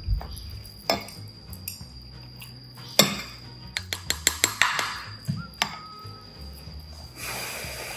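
A fork clicking and tapping against a bowl of food, with single sharp clinks and a quick run of about eight clicks around four seconds in. Soft background music underneath.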